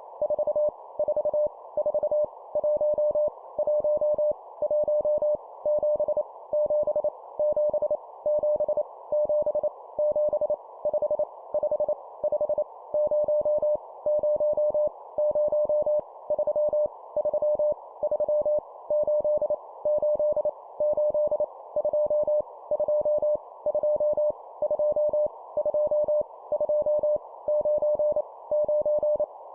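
Morse code (CW) at 25 words per minute: a single steady beeping tone keyed on and off in short and long elements, sending random numbers for copying practice.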